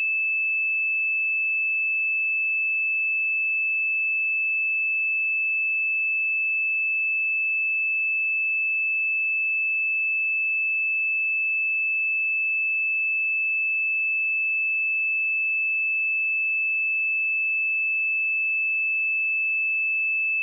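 A steady 2624 Hz pure sine-wave test tone, one unbroken high-pitched note at constant loudness.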